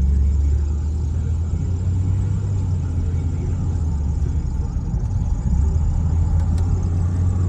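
A car's engine and road noise heard from inside the cabin while driving: a steady low drone.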